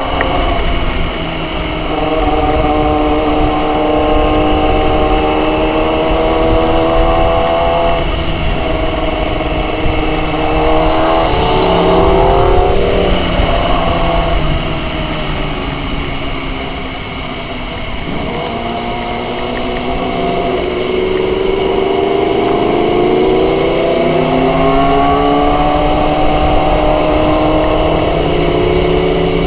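Motorcycle engine running under way, its pitch climbing and dropping several times as it is revved up and eased off. There is a steady wash of wind and heavy-rain noise on the microphone.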